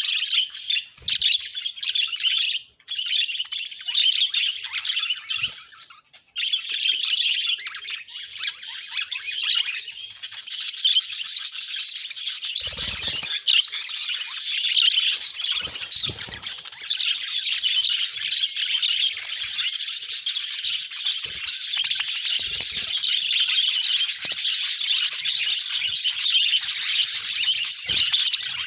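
Budgerigars chattering and warbling: a dense, continuous stream of high-pitched chirps, with two brief breaks in the first several seconds and fuller chatter from about ten seconds in.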